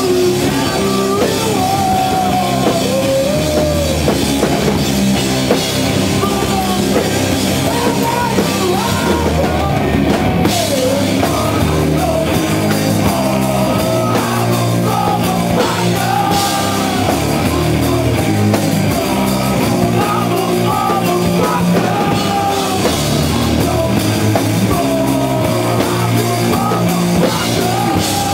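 Rock band playing live and loud: electric guitar, bass and drum kit.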